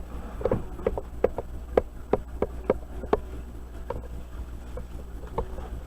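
A run of about ten light knocks and clicks, a few a second, then one more near the end, from handling the newly unboxed aquarium and its packaging, over a steady low hum.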